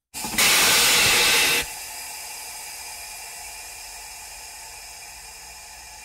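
Compressed air released with a hiss. A loud burst lasts just over a second, then drops suddenly to a softer hiss that slowly fades away.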